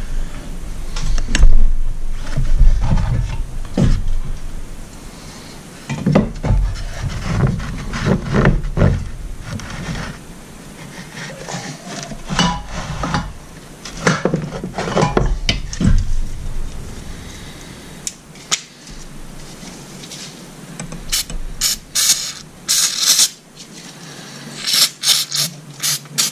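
Workbench handling noise from an aluminium outboard piston and tools: uneven knocks, rubs and clicks as the parts are picked up and set down. Near the end come several short hisses from an aerosol can being sprayed.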